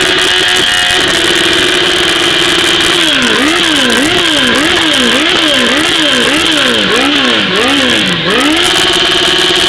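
Suzuki engine held at high revs, then from about three seconds in revved up and down over and over, about one and a half sweeps a second, before settling back to a steady high rev near the end.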